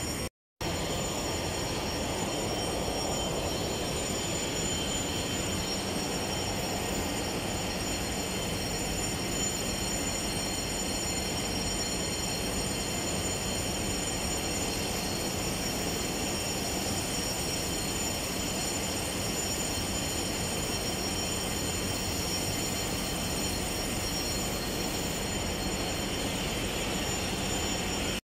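Oxy-fuel cutting torch burning, a steady rushing hiss, as it cuts the old fire tubes out of the boiler's tube sheet.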